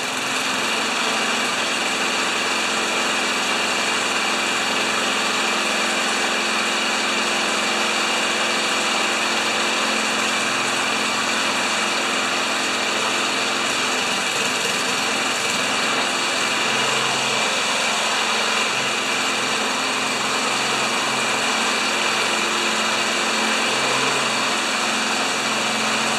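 Old Tecumseh single-cylinder lawn mower engine running steadily at a constant speed, freshly restarted after a homemade intake repair following 20 years in a shed.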